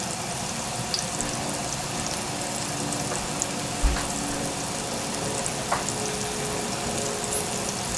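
Sliced shiitake mushrooms sizzling steadily in hot oil in a frying pan. There is a single low knock about four seconds in.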